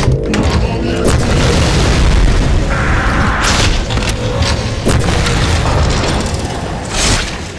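Animated-action explosion effects: loud booms over a deep rumble, with several sudden blasts and impacts and a rushing burst about three seconds in.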